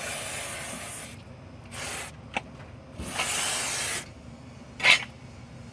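Aerosol brake cleaner sprayed onto a brake rotor in four hissing spurts: two longer ones and two short ones, the last short one near the end the loudest.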